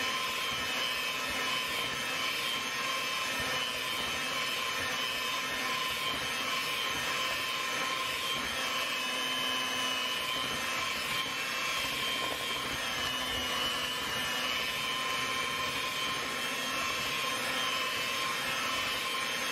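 Electric hand mixer running steadily at one speed, a constant motor whine, its beaters churning through thick sweet potato pie batter.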